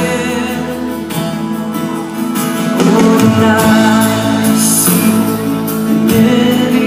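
Live band music played through a concert sound system, with guitar and singing. It gets louder about three seconds in.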